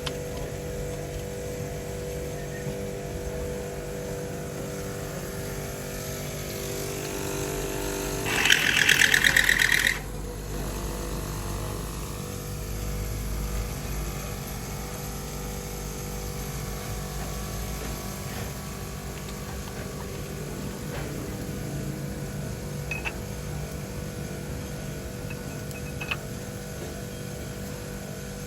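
Car engine idling steadily, with a loud rattling buzz for about a second and a half, about eight seconds in.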